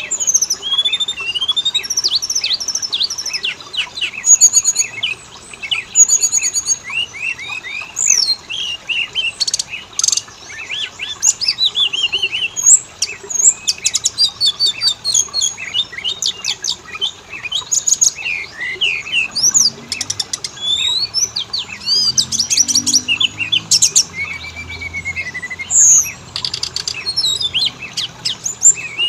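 Oriental magpie-robin (kacer) song: a continuous, fast flow of varied clear whistles, slurred upward and downward notes and rapid trills and chatter, with no pauses.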